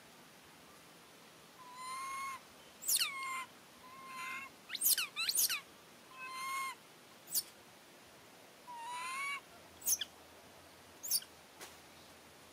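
Baby long-tailed macaque crying: a string of short, high-pitched calls about once a second, some sliding sharply down in pitch.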